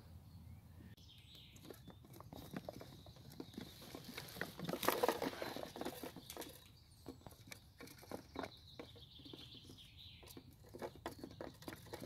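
Small songbirds fluttering and hopping inside wooden holding boxes, a rapid, irregular patter of wingbeats, taps and scratches on wood and wood shavings, busiest about five seconds in.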